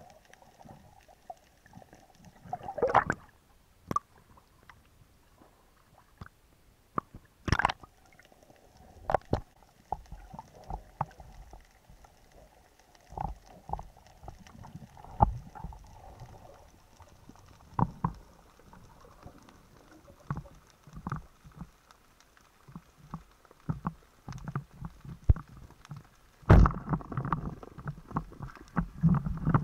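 Muffled underwater sound picked up through a camera's waterproof housing during a dive: scattered sharp knocks and clicks, with a louder stretch of low rumbling water noise and knocking near the end.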